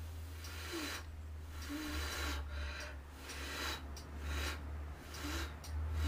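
A person breathing close to the microphone, a series of soft breaths about once a second, over a steady low hum.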